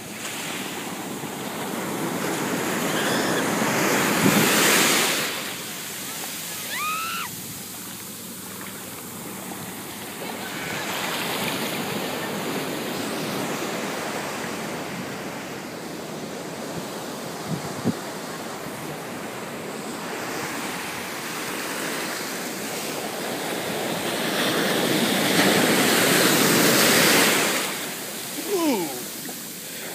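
Ocean surf breaking and washing up over the sand at the shoreline, a steady rush that swells loudest about four seconds in and again after about twenty-five seconds.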